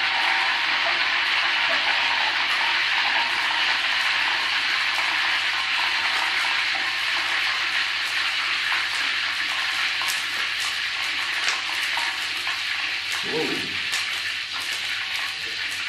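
Steady sizzling hiss from a wok of oil heating over a lit gas stove burner, with scattered light crackling ticks in the last several seconds. A short low thump comes near the end.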